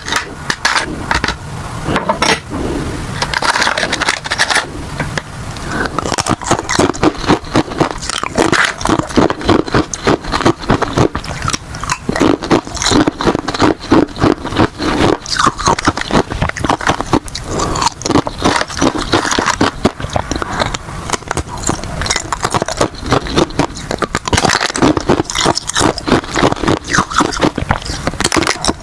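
Ice being bitten and chewed: continuous rapid crunching and crackling, with sharp crunches coming about two or three a second.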